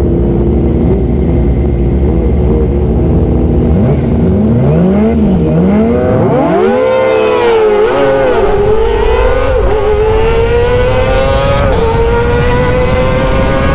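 Sport motorcycle engine revving hard under acceleration on the road, its pitch swinging up and down and then climbing steadily, with a brief drop at a gear change near the end; wind noise underneath.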